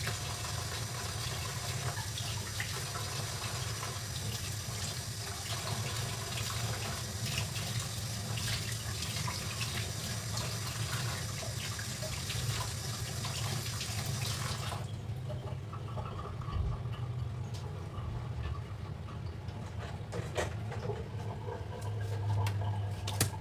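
Kitchen tap running into a sink while greens are rinsed under it. The water shuts off about fifteen seconds in, leaving a few light clinks and handling sounds.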